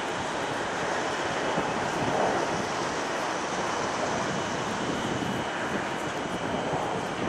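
Boeing 767 jet engines running at taxi power: a steady rushing noise with a faint high whine.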